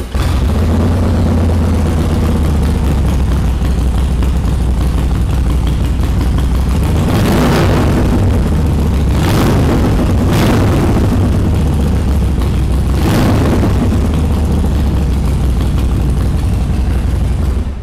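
Harley-Davidson Sportster 1200 Seventy-Two's air-cooled V-twin, through Vance & Hines exhausts, fires up and idles with a deep rumble. It is blipped four times through the middle and switched off at the end.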